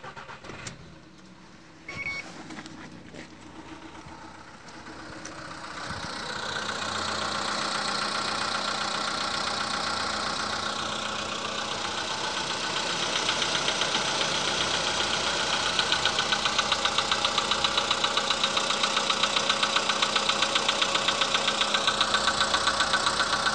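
Volkswagen CFN 1.6-litre petrol engine running cold with a knock. The knock sets in as a steady, rapid rhythmic beat a little past halfway and stays even to the end.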